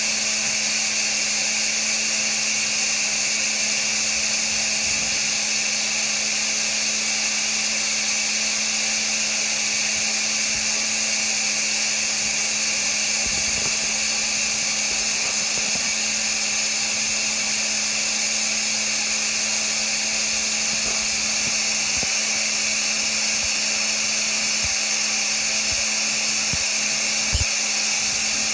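Upholstery cleaning machine's motor running steadily: an even hiss over a constant low hum, with one short knock just before the end.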